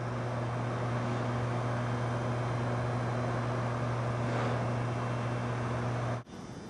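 A steady low drone with a hiss over it, which cuts off suddenly about six seconds in.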